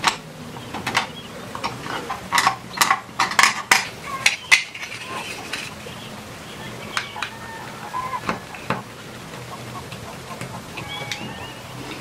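Snap-off utility knife handled and its blade worked against a small wooden block: a run of sharp clicks and scrapes about two to five seconds in, fewer later. Birds chirp faintly in the background.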